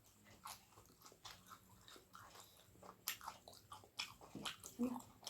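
Close-miked mouth sounds of a person chewing food: soft wet clicks and smacks, growing denser and a little louder over the last two seconds.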